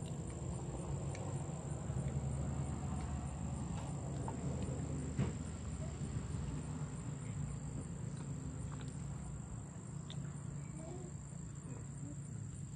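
A steady low hum with a thin, constant high whine, and a few faint clicks and one sharper knock about five seconds in.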